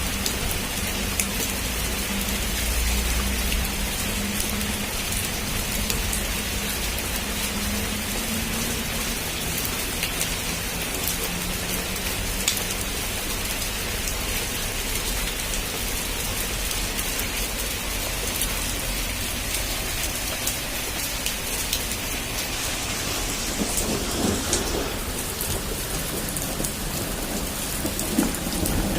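Heavy rain falling steadily in an even hiss, with scattered sharp drop ticks. A deep thunder rumble sounds in the first few seconds and fades.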